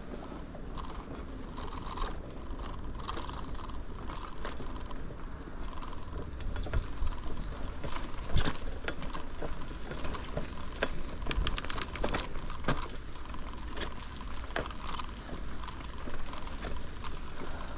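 Bicycle rolling over a rough trail: irregular clicks, ticks and rattles from the bike over a steady low rumble.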